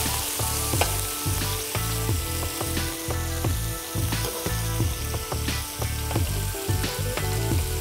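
Minced-lamb meatballs sizzling in hot olive oil in a frying pan on high heat. A metal spoon clicks against the pan several times as they are turned.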